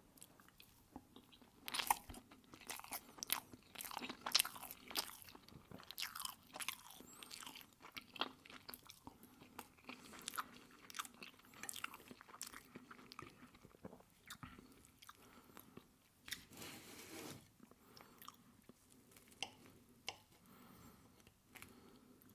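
Close-miked chewing and biting of pancake with maple syrup: a dense run of small irregular mouth clicks, busiest in the first seven seconds.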